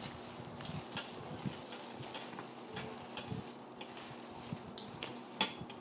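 Eating sounds: chewing, with scattered mouth clicks and crackles and one louder sharp click about five and a half seconds in.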